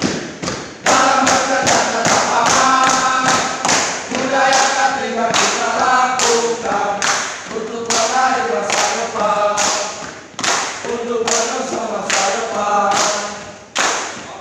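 A group of men singing a yel-yel cheer in unison, with sharp hand claps keeping a beat about twice a second.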